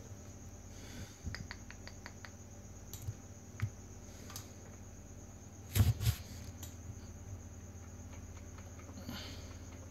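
Computer mouse clicking: a quick run of small clicks about a second in, a few single clicks, and a louder double click near the middle, over a faint steady computer hum.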